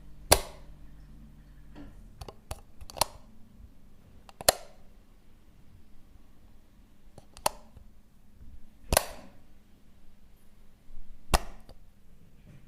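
Switches being flicked: a series of single sharp clicks at uneven intervals, about eight in all, the loudest with a short ring after them.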